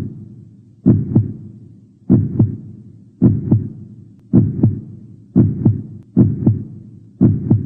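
Heartbeat sound effect: paired low thumps, lub-dub, about once a second, quickening slightly near the end.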